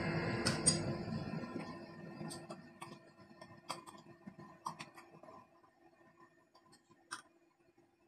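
Background music fading out over the first few seconds, then scattered light metallic clicks and taps of hand tools against a diesel engine's cylinder head and camshafts.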